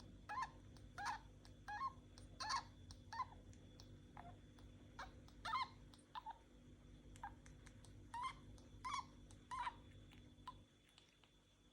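Budgerigar clicking and squeaking as it breathes: a string of short, high squeaks and clicks, roughly one to two a second, that dies away near the end. Such noisy breathing in a budgie is typical of a respiratory problem.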